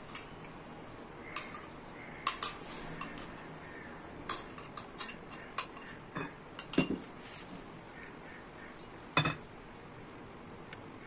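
Metal spoon clinking and scraping against a small ceramic bowl while its contents are scraped into a glass mixing bowl. About a dozen sharp clinks come at irregular intervals, with two fuller knocks about seven and nine seconds in.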